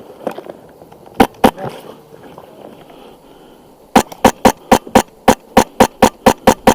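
PolarStar F2 HPA airsoft rifle firing semi-auto: two shots about a second in, then a rapid string of about a dozen shots, roughly four a second, near the end.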